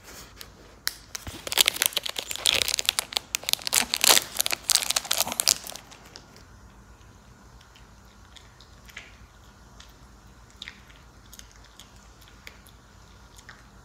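Crinkling and crunching of a dog chew and its plastic wrapper for about five seconds, then only faint scattered clicks.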